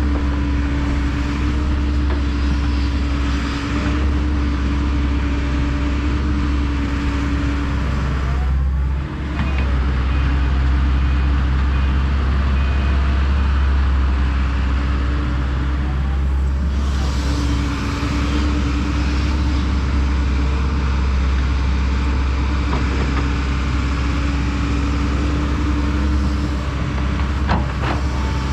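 Diesel engine of a heavy earthmoving machine running steadily under work, a constant low drone with a brief dip and pitch change about nine seconds in and again near the middle.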